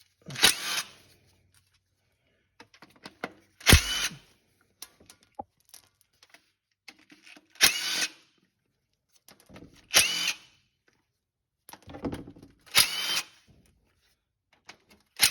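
A cordless power driver runs in six short bursts a few seconds apart, spinning out the bolts of a 4T65E transmission pan. Each burst has a whine that rises and dips, and there is a sharp knock as the second one starts.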